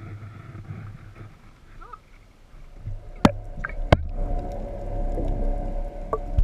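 Boat engine running, growing louder about three seconds in, with two sharp knocks just after.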